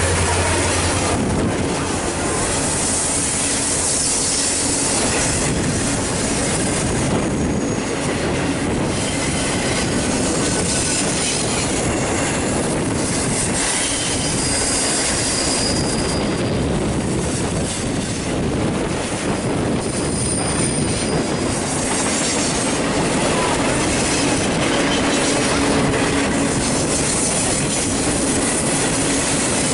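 Union Pacific freight train of double-stack container cars rolling steadily past, with steel wheels rumbling and clattering on the rails. A low diesel hum from the last locomotive drops away in the first couple of seconds, and brief high-pitched wheel squeals come now and then.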